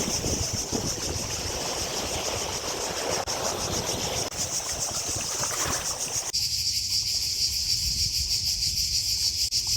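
A chorus of cicadas buzzing steadily and high-pitched, with a fine rapid pulse. Under it a rushing noise runs for the first six seconds or so and then cuts off suddenly.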